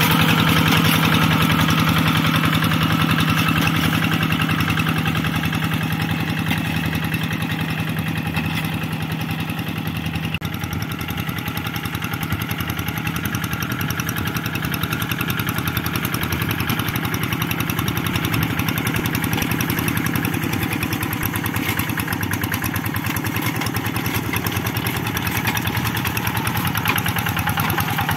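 Kubota single-cylinder diesel engine of a two-wheel hand tractor running steadily under load while ploughing a flooded rice paddy. It is a little quieter for a few seconds in the middle.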